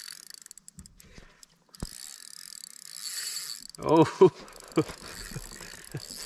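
Spinning reel whirring and clicking in uneven spells as it is cranked against a hooked bass. A short voiced exclamation and a few light knocks come about four seconds in.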